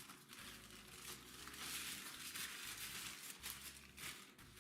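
Faint crinkling and rustling of plastic parcel packaging being handled and unwrapped to get at a pair of multimeter probes, in uneven bursts.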